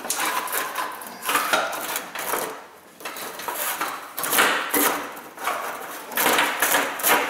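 Plastic EVAP vent hose scraping, rustling and knocking against the frame and charcoal canister as it is pushed up through from below, in irregular bursts.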